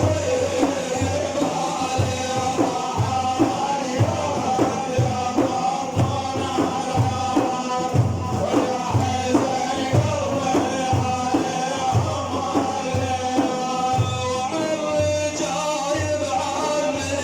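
Music: a steady drum beat, about two strokes a second, under a held melody line that changes pitch near the end.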